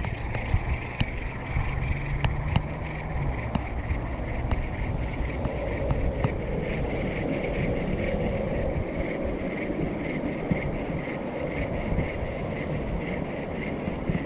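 Wind buffeting the microphone: a steady low rumble with a few faint clicks.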